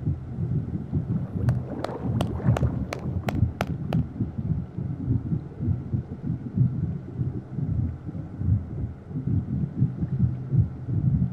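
A low, uneven rumbling drone with a steady hum underneath. About one and a half seconds in comes a quick run of about eight sharp clicks, roughly three a second, which stops about four seconds in.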